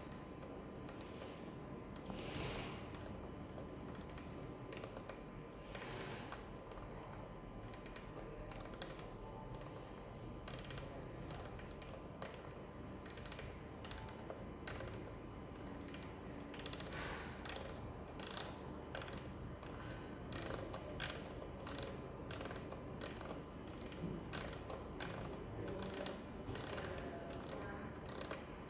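Rotary speed knob on a Taisite AM110W-O laboratory overhead stirrer being turned, its detents clicking in uneven runs of ticks, more often in the second half, as the set speed is dialled up. The stirrer motor is not running.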